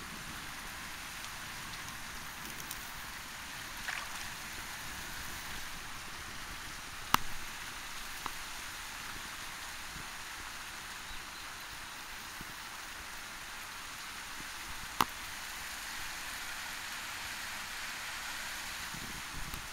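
Steady hiss of outdoor background noise, broken by two sharp clicks about seven and fifteen seconds in.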